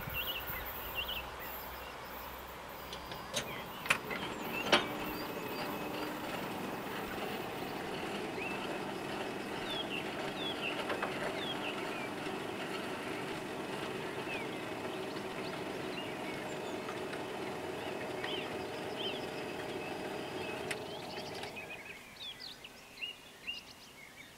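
Level-crossing barrier drives raising the booms: a few sharp clicks about four seconds in, then a steady motor hum that cuts off about twenty-two seconds in as the booms reach the top. Birds chirp throughout.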